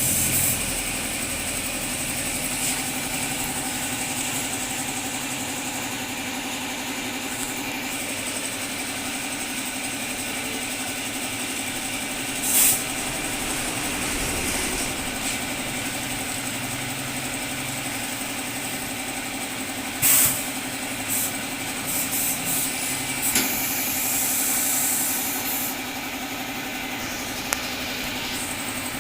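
Steady motor hum, with several short hissing bursts about a third of the way in, twice more past the middle, and a cluster a little later.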